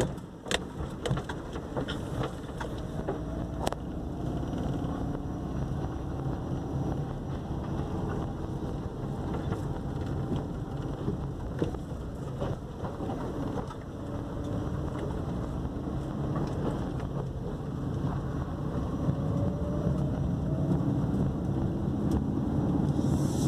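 A car being driven, heard from inside the cabin: the engine and tyre noise run steadily. A few sharp knocks and rattles come in the first few seconds on the broken, gravel-patched road surface. The engine note rises near the end as the car speeds up.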